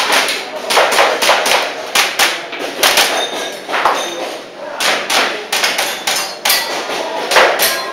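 Airsoft pistol firing a long string of shots, sharp cracks often in quick pairs, with short pauses between groups.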